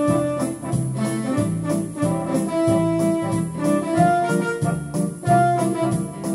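Yamaha electronic keyboard played with both hands: held melody notes over a moving bass line in the low register.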